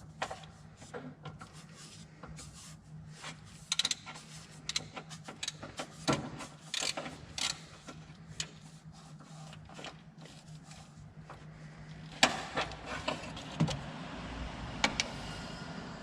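Wrench and metal parts clicking and knocking as the alternator's mounting bolts are worked loose, in scattered sharp clicks that bunch together a few times, over a steady low hum.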